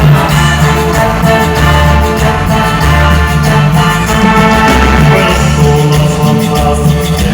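Live band playing a Latin dance tune, mostly instrumental with a steady bass line, through a PA system during a sound check.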